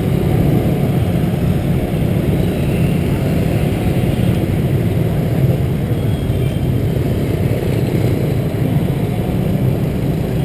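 Steady low rumble from riding a scooter through dense motorbike traffic, with wind noise on the microphone.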